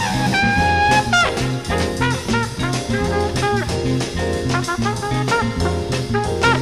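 Background jazz music with brass and a drum kit at a swing beat: a held horn note in the first second, then short bending horn phrases.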